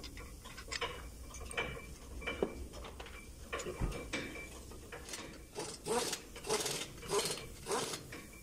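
Ratchet wrench clicking as the brake caliper bracket bolts are tightened, in short strokes about two a second through the second half, with a few scattered metal clinks before it.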